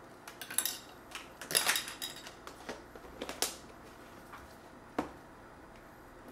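A spoon clinking and scraping against a cooking pot while kitchen utensils are handled: a run of short clicks and scrapes, with a single sharp click about five seconds in.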